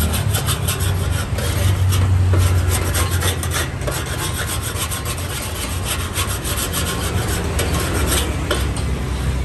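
A metal spatula scrapes across a large, shallow steel pan in quick, repeated rasping strokes, pushing leftover bits of fried noodles across the cooking surface. A steady low hum runs underneath.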